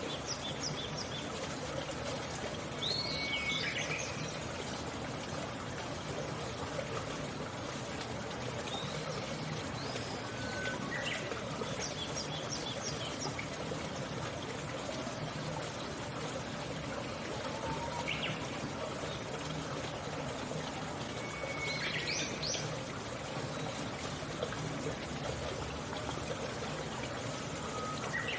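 Steady trickling water, with a few short bird chirps and whistles heard now and then, about four times.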